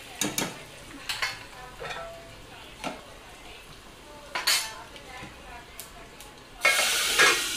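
Metal utensils knocking and clinking against steel cooking pots, a handful of separate strikes. Near the end, hot tadka (spiced oil tempering) goes into the pot of kadhi and sets off a sudden loud sizzling hiss that keeps going.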